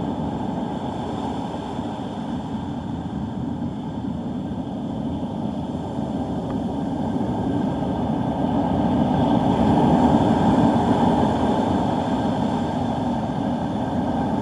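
Steady wind noise on the microphone from strong gusty wind ahead of a hurricane, swelling louder about ten seconds in.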